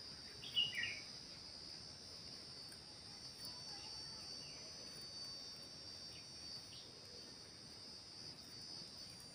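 Faint, steady, high-pitched insect drone, like crickets, with one short chirp about half a second in.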